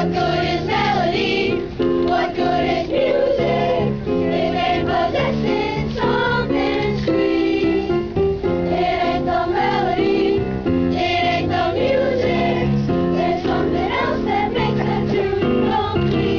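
Boys' choir singing a melody over steady accompanying chords.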